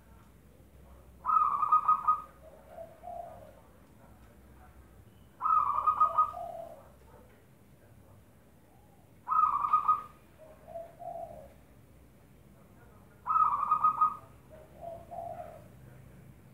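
Zebra dove (perkutut) cooing: four song phrases about four seconds apart. Each phrase is a quick run of loud, higher notes followed by a few softer, lower notes.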